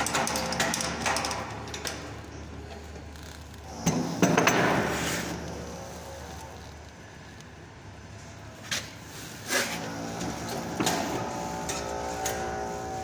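Electric pipe-drilling machine, chain-clamped onto a steel pipe, running as it drills a hole in the pipe, with clicks and knocks from the clamp and a louder rasping burst about four seconds in.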